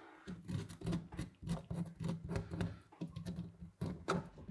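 A thin metal pick scraping and clicking against the rusty metal housing of an old manual knife sharpener, in short repeated strokes about two to three a second, picking rust and dirt from around a screw head.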